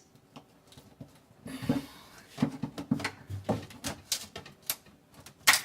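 A knife working loose a thin strip of wood window molding: irregular small clicks, taps and scrapes of the blade against the wood, with one sharper click near the end.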